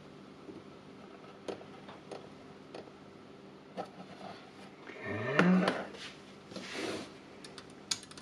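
Spot welder probes pressed onto the nickel connection plates of a Milwaukee M18 battery pack, with a few sharp light clicks over a steady low hum. A short loud sound rising in pitch comes about five seconds in, and quick metal taps follow near the end.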